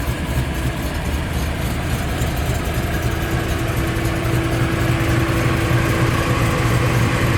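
Ford Mustang's engine running steadily, slowly growing a little louder, with a steady hum joining in about three seconds in.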